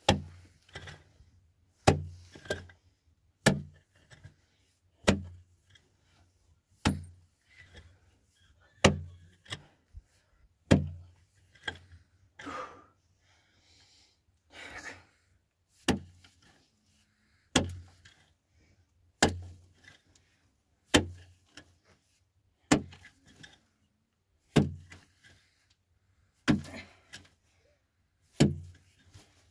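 Heavy blows struck at a steady pace, about one every two seconds. Each is a sharp knock with a deep thud beneath it, and there is a pause of a few seconds near the middle.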